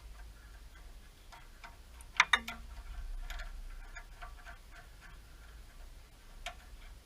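Light metallic clicks and taps from handling and bending a steel brake line, with two sharp clicks in quick succession about two seconds in that ring briefly, and another click near the end.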